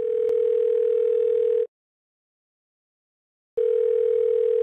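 Telephone ringback tone, the ringing a caller hears: a steady mid-pitched tone that stops about a second and a half in and sounds again about two seconds later.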